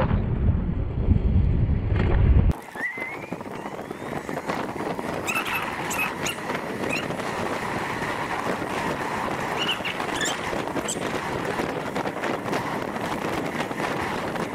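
Wind buffeting the microphone of an electric scooter riding along a road. About two and a half seconds in, it cuts to a steadier road and wind noise with a few short, high squeaks.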